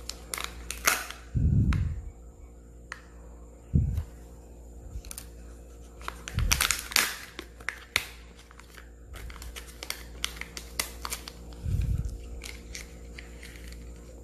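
Crinkling and tearing of a Kinder Joy egg's plastic wrapper being handled and opened, with many sharp crackles and a few dull thumps from handling.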